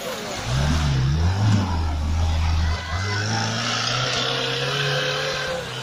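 Small tractor engine revving hard under load as the tractor pulls out of a mud pit and climbs a dirt slope. The revs swing up and down for about a second, hold steady, dip briefly about halfway through, then run on at a slightly higher, steady pitch.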